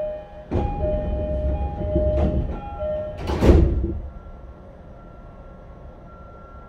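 E233 series commuter train's door-closing chime, two alternating tones repeated, with clunks from the sliding doors, ending about three and a half seconds in with a loud thud as the doors shut. After that the stopped car is quiet but for a faint steady tone.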